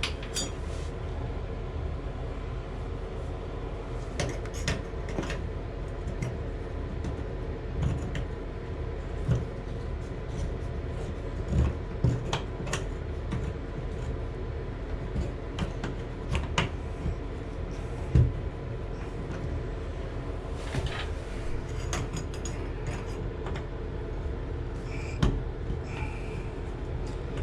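Scattered sharp clicks and knocks of hand tools working on a brass tub stem, over a steady low hum.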